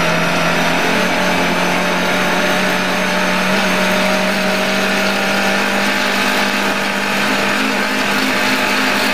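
Lada 1200 rally car's four-cylinder engine running hard at a nearly steady pitch, heard from inside the cabin, over a constant wash of tyre and road noise on a snowy road.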